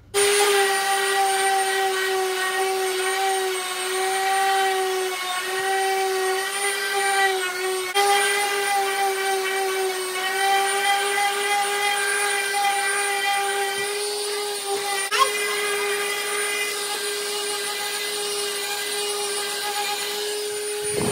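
DeWalt random orbital sander running steadily against a painted wooden stair riser, scrubbing off old carpet-runner glue residue; its motor whine holds one pitch, then falls away as it winds down right at the end.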